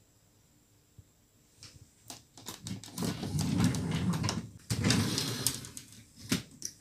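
A dresser drawer sliding shut on its runners, then another drawer pulled open, with clicks and rattles along the way. Before that, near silence apart from a single click about a second in.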